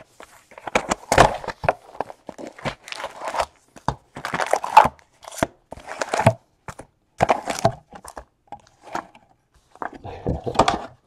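Foil trading-card pack wrappers crinkling and tearing while the basketball cards are handled, in a quick run of short rustles and snaps.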